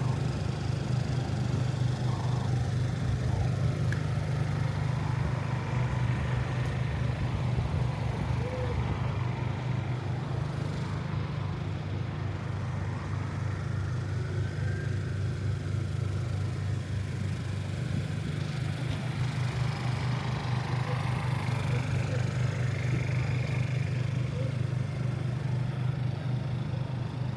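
City street ambience: traffic with a steady low hum throughout and a haze of background noise.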